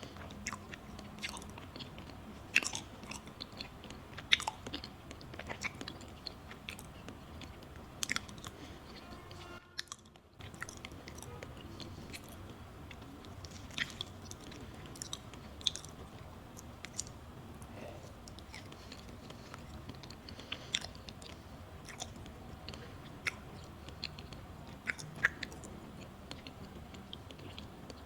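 Close-miked eating sounds of a matcha pudding crepe: soft, moist chewing with scattered small mouth clicks and smacks. The sound drops out briefly about ten seconds in.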